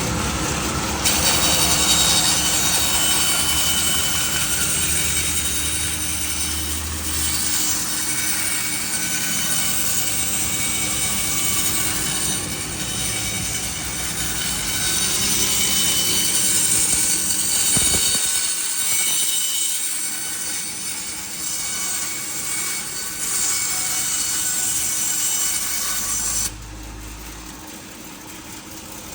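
Ryobi BS-750 band saw cutting wood: a steady rasping hiss with a high whine. It starts about a second in and stops abruptly near the end, leaving the saw running free with a quieter hum.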